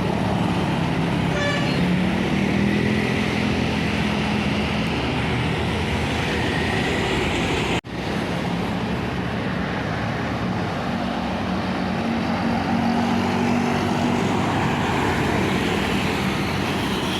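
Steady road traffic with a large vehicle's engine running, a continuous roar with a low hum. The sound cuts out for an instant about eight seconds in.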